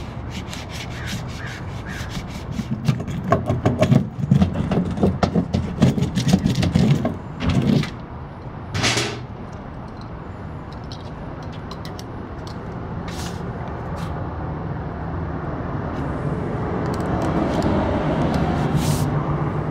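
Flashing tape and house wrap being worked by hand, with rapid clicking and crackling that is loudest a few seconds in, then a short scrape. A low rumble swells near the end.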